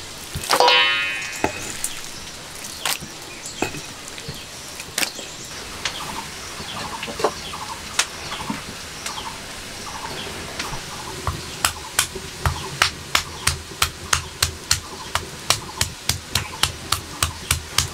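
A stone pestle knocking on a flat grinding stone, crushing garlic, in a steady run of sharp knocks about two to three a second from about eleven seconds in, after a few scattered knocks. A bird calls once near the start.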